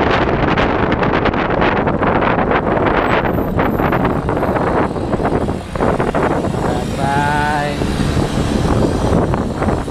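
Wind buffeting a camera microphone on a moving motor scooter, with road and traffic noise; a brief wavering pitched sound rises out of it about seven seconds in.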